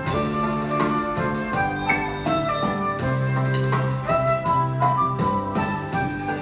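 Kurtzman K350 arranger keyboard playing a bolero: a sustained melody voice over the keyboard's auto-accompaniment, with held bass notes and a steady drum rhythm.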